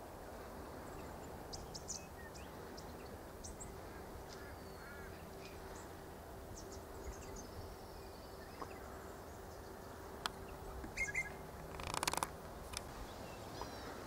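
Faint outdoor ambience with scattered, distant bird chirps and short calls over a steady low hum. A brief rush of noise comes near the end.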